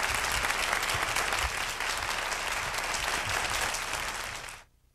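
Audience applauding after a song, a dense patter of many hands clapping that cuts off sharply near the end.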